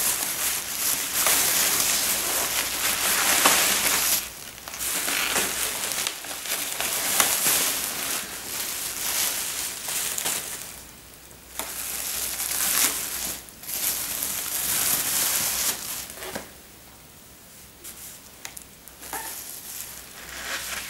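Plastic bubble wrap crinkling and rustling as it is pulled off and unrolled by hand, in long stretches with brief pauses, dropping to a few scattered crinkles in the last few seconds.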